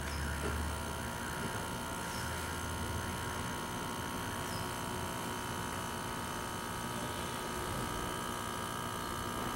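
Mini condensate pump for an air conditioner running with a steady electric hum and buzz, which is still some noise but less than the other pump makes.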